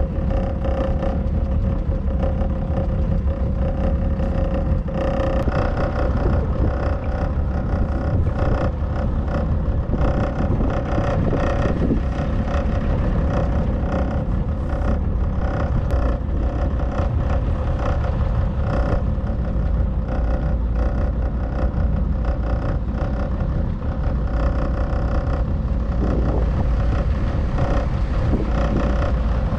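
Small motorboat's engine running at a steady speed, a constant low rumble with a steady hum over it.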